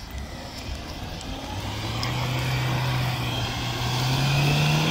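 Lada Niva's engine pulling under load as the 4x4 climbs a muddy slope. It comes in about a second and a half in, growing louder and rising slightly in pitch as the car nears.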